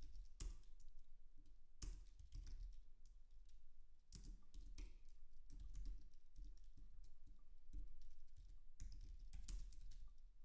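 Typing on a computer keyboard: irregular keystrokes coming in short runs with brief pauses between them.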